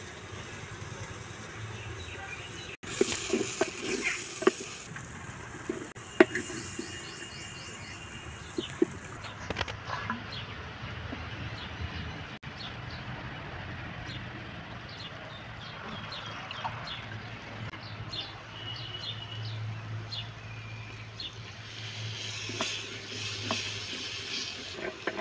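Red chillies sizzling in hot oil in a clay pot, with knocks and scrapes of a wooden spoon against the clay. The hiss grows louder near the end.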